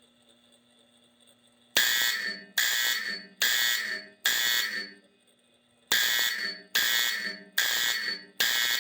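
Fire alarm signal driven by a 1965 Honeywell W247B control panel, sounding the 4-4 master code. Two rounds of four sharp strokes start about two seconds in, each stroke ringing and then fading, with a short pause between the rounds.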